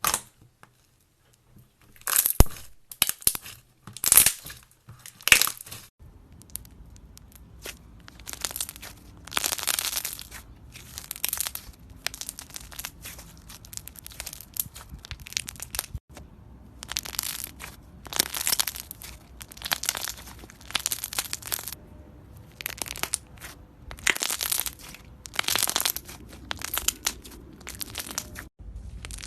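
A brittle, crunchy material being crushed and cracked, making a run of crackling crunches about once a second.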